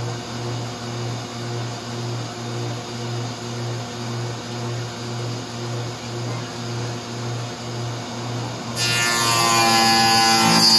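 Electric benchtop jointer-planer running with a low hum that pulses about twice a second. About nine seconds in, the cutter head bites into the wood and a louder, dense cutting noise takes over as the board is planed.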